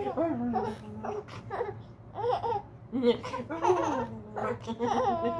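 A woman and a baby laughing and babbling playfully, in several short bursts of voice with brief pauses between them.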